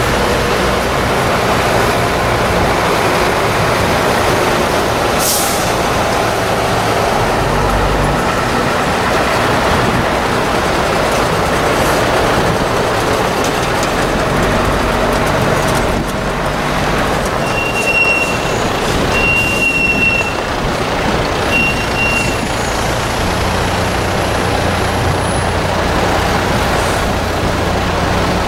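A convoy of diesel fire engines rolling past slowly with engines running, with a short air-brake hiss about five seconds in. Three short high-pitched beeps sound about two-thirds of the way through, and a truck engine's low steady hum comes up near the end.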